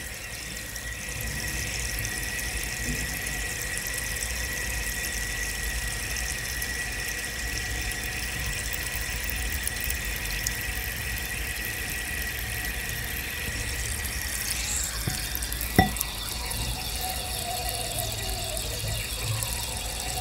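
A porous white block soaking in a glass bowl of water, fizzing and crackling steadily as air bubbles out of it, with a thin steady whistle that fades out about two-thirds of the way through. A single sharp knock comes about three-quarters of the way in as the softening block shifts.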